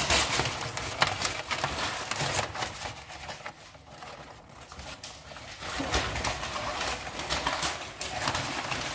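Paper rustling and crackling as it is crumpled and stuffed into the firebox of a freshly lit wood stove, with irregular clicks and light knocks. It eases off for a couple of seconds in the middle.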